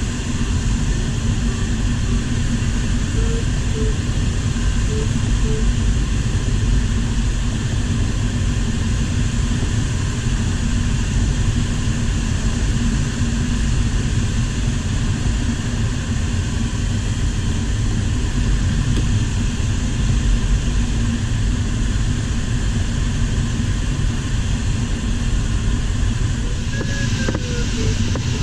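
Steady rush of air around the cockpit of an LS4 sailplane in flight, an unpowered glider, so airflow is the only sound it makes. A few faint short beeps come through a few seconds in.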